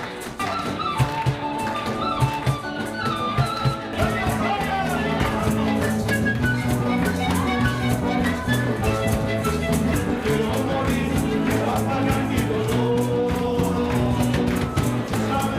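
Live band playing upbeat music, a melody over a repeating bass line with a steady percussive beat.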